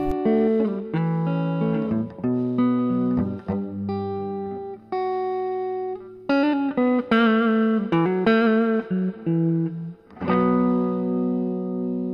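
Instrumental guitar music with no singing: a run of held notes changing every half-second or so, a short break about ten seconds in, then a long held chord.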